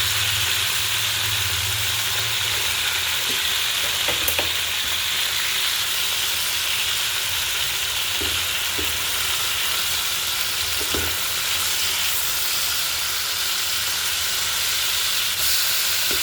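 Pangas fish pieces coated in salt and turmeric sizzling steadily in hot oil as they are shallow-fried, with a few faint knocks of a utensil against the pan.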